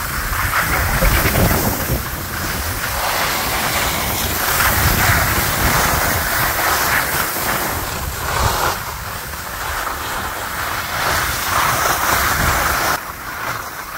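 Wind buffeting the microphone while skiing downhill, over a rushing hiss of skis sliding on packed snow that swells and eases with the turns and drops off near the end.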